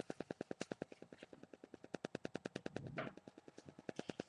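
Rapid, evenly spaced clicking, about eight clicks a second, with a brief breathy noise about three seconds in.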